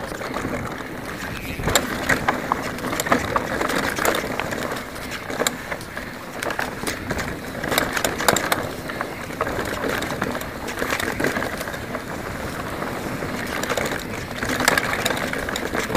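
Specialized Enduro mountain bike descending a dirt trail at speed: continuous tyre and wind noise with frequent sharp clacks and rattles as the bike hits bumps and roots.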